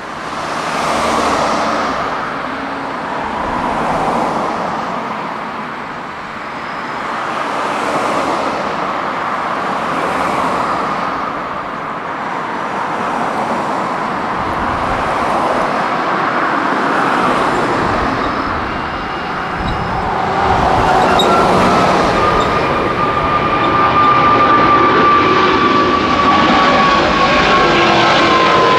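Twin jet engines of a Boeing 777-300 airliner at takeoff thrust: a steady roar that swells and fades every couple of seconds, growing louder as the jet lifts off and climbs closer. In the last third a whining tone comes in and slowly falls in pitch.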